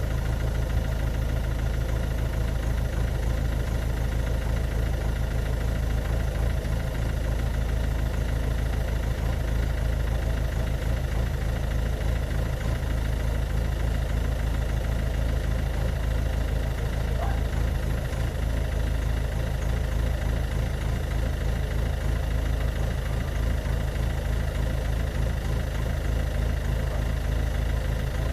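Ford Focus Mk2 1.6 TDCi four-cylinder turbodiesel idling steadily, with a rapid pulsing beat. It is running with the rough idle that the owner pairs with white exhaust smoke.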